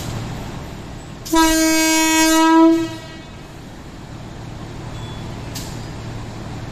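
Electric commuter train's horn sounding one steady blast about a second and a half long, over the low steady hum and rumble of the train at the platform.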